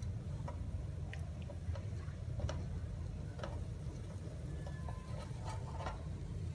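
Tomato and egg sauce bubbling in a frying pan, with scattered small pops and crackles, a few a second, over a low steady hum.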